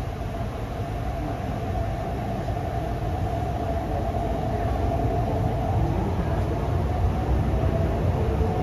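Hyundai Rotem R-Train electric multiple unit heard from inside the passenger car as it pulls out of a station. A low running rumble grows gradually louder as the train picks up speed, with a steady mid-pitched whine over it.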